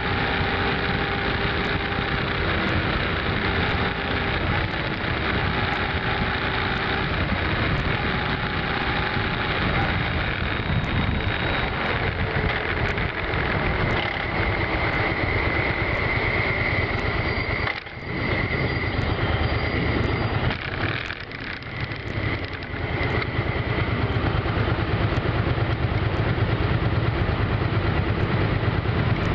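V-twin cruiser motorcycle running at low speed in slow traffic, its engine note mixed with a steady rush of wind and road noise. The sound drops briefly twice about two-thirds of the way through.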